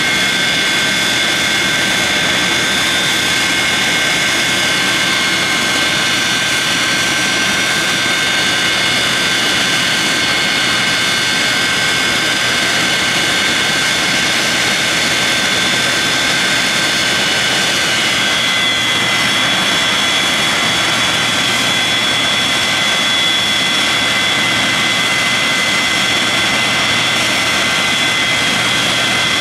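Boeing 737-200's Pratt & Whitney JT8D turbofan engines running steadily on the ground, a high whine of several held tones over a rushing hiss. The pitch of the tones shifts slightly about two-thirds of the way in.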